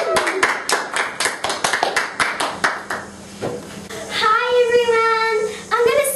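A few children clapping their hands in quick, even claps for about three seconds. About a second after the clapping stops, a child starts singing.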